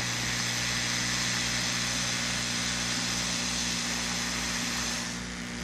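Hot-air rework blower running steadily, a rushing hiss over a low motor hum, heating the solder of a small surface-mount inductor to lift it off the board. It drops away a little before the end.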